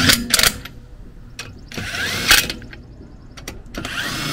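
Cordless impact wrench hammering the wheel's lugs tight in several short bursts, about four in all, with pauses between them.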